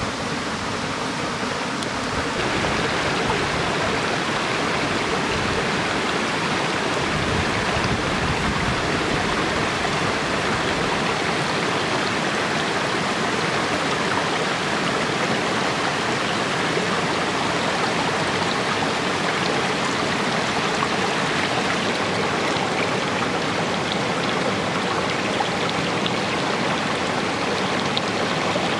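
Shallow forest stream running over mossy rocks: a steady, even wash of flowing water, settling in about two seconds in.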